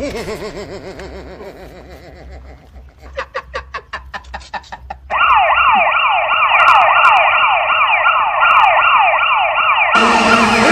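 Electronic siren cycling through its tones: a warbling wail, then a couple of seconds of rapid pulsing, then a loud fast yelp of quick rising sweeps repeating two to three times a second. A different, fuller sound cuts in just before the end.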